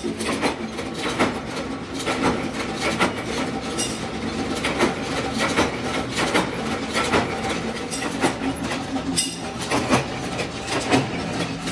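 Belt-driven mechanical flywheel power press punching steel sprocket blanks: a steady motor-and-flywheel hum with repeated metal clanks, about one to two a second.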